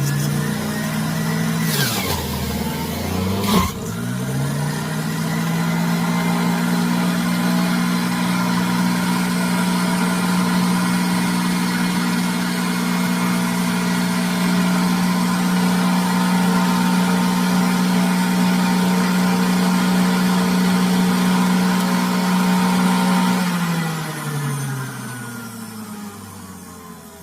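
Hamilton Beach Easy Clean centrifugal juice extractor's motor running with a steady hum. It slows sharply twice, with a knock, a few seconds in as it takes a load, then picks back up. Near the end it is switched off and winds down with a falling pitch.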